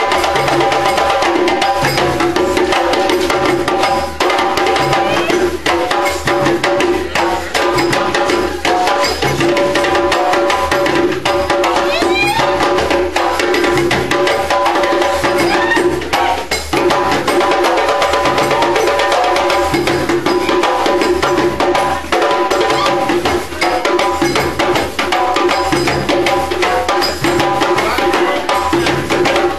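Live percussion music: drums played in a fast, steady rhythm, with held pitched tones sounding above it.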